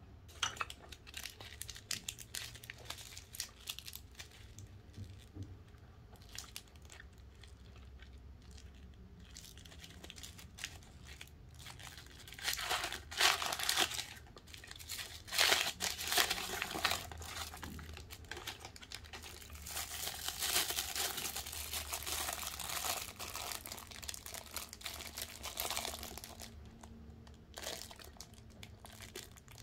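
Paper and plastic snack wrappers crinkling and crackling in the hands as they are crumpled and peeled open, in loud bursts around the middle. Near the end it is clear plastic film crinkling as it is unwrapped from a preserved prune.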